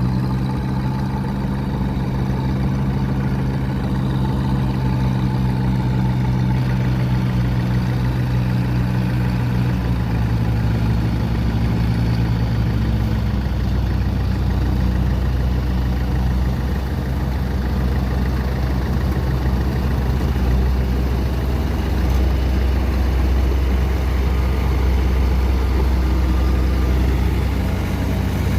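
Diesel engine of a heavy farm machine running steadily. Its higher note fades out about halfway through, leaving a deeper, lower drone.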